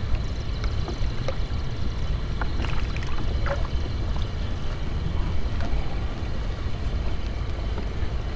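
Steady low rumble of wind and water around a small wooden boat, with a few faint clicks and taps from a caught fish being handled.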